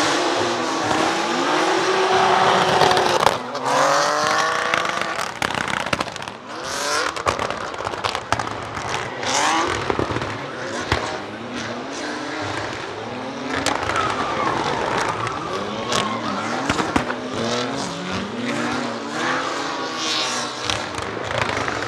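Drift car engines revving hard, the pitch climbing and dropping again and again, with tyre squeal and sharp exhaust pops and bangs scattered through.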